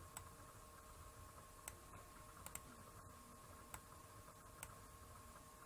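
Computer mouse clicking about six times, faint and sharp, two in quick succession near the middle, over near-silent room tone with a faint steady hum.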